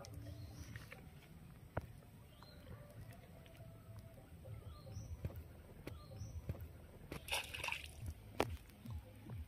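A small fish splashing at the pond's surface as it is struck and lifted out of the water on a cane pole's line, a short splashy burst about three-quarters of the way through. A few short bird chirps come before it.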